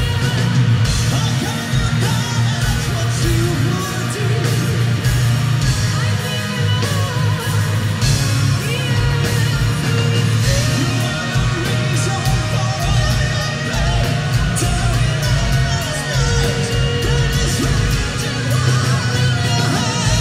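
Live symphonic metal band playing at full volume, recorded from the audience: a female lead voice sings over pounding drums, heavy bass and guitars.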